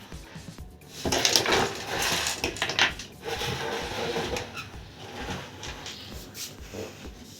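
Clattering and rustling of a desktop PC power supply unit's metal casing and cable being handled and set in place, with several sharp knocks about a second in. The fan is not running.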